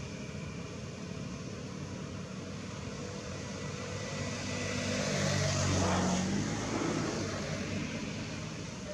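A motor vehicle's engine passes by, swelling to its loudest about six seconds in and then fading, over a steady outdoor background hum.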